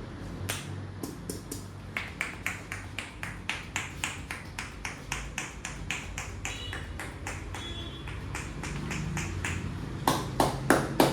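Rhythmic percussive tapping of a barber's hands on the head during an Indian head massage, about four strikes a second, with a few louder, sharper strikes near the end.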